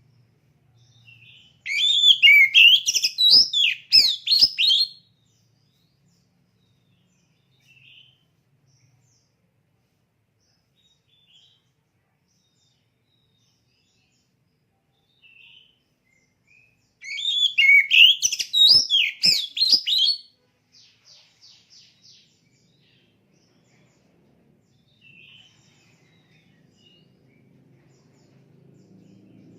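Oriental magpie-robin (kacer) singing: two loud bursts of rapid, varied, high-pitched phrases, each about three seconds long and some fifteen seconds apart, with faint short calls in between.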